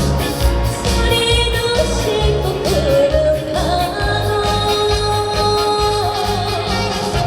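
Trot song performed live: a woman singing over a backing track with a steady, heavy beat.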